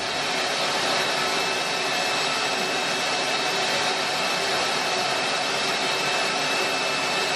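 Shop vacuum running steadily as dust extraction, drawing air through its hose: a loud, even rushing hiss with a faint high whine.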